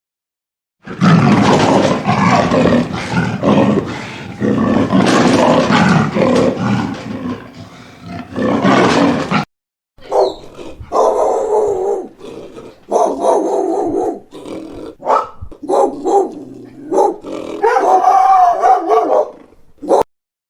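Recorded animal calls: a dense, rough call lasting about eight seconds, then after a brief break a run of short pitched calls, each under a second.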